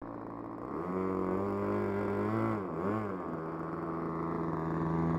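Nose-mounted O.S. .95 glow (nitro) engine of a Value Hobby Tiger RC airplane running at low throttle, heard close up from the plane's onboard camera. Its pitch steps up about a second in, dips twice in the middle, then settles into a steady, slightly lower speed.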